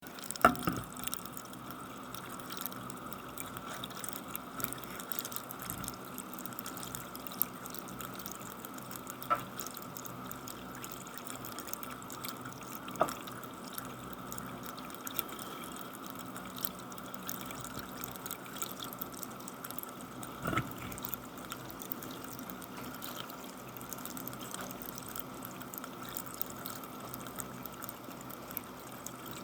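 A drink crackling and fizzing steadily, with a dense run of tiny pops and a few louder clicks.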